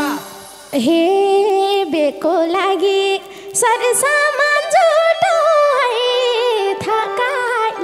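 Nepali dohori folk singing with the band silent. A man sings an ornamented, wavering phrase, then about three and a half seconds in a woman's voice takes up the next line, sliding and trembling in pitch.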